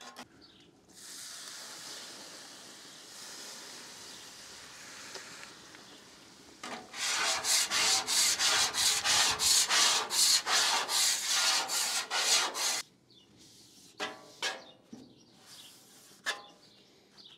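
Hand-cleaning a Weber Slate griddle's flat cooktop. A steady hiss comes first, then about six seconds of loud, rapid scrubbing strokes across the wet top, about three a second, then lighter wiping with a rag.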